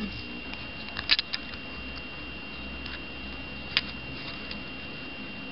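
Small sharp clicks from fingers handling a homemade wristwatch and its copper cover plate: a quick cluster of three about a second in and a single click near four seconds, over a faint steady high-pitched whine.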